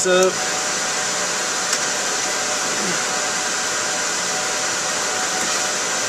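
Cooling fans of a room full of rack servers running steadily: an even rush of noise with a few faint steady tones in it.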